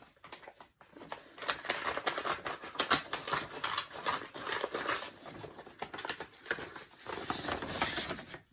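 A package being opened by hand: a continuous run of crackling, rustling and tearing of the packaging, with scattered sharp clicks.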